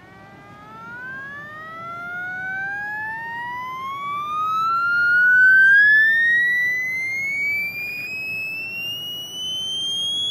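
Piezoelectric buzzer element driven by a function generator's sine wave, giving a tone with faint overtones that glides steadily upward in pitch as the frequency is turned up; it is loudest about halfway through.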